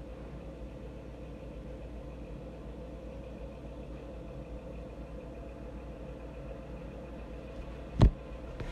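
Steady low background hum with a faint steady tone, and no speech. One sharp knock comes about eight seconds in.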